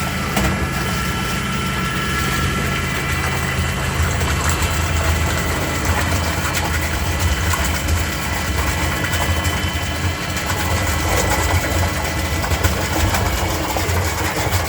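Steady hum and whine of an industrial twin-tank cooking kettle's electric drives, its scraper and mixer motors and its transfer pump, running while water is pumped from one tank to the other. The low hum grows stronger about four seconds in.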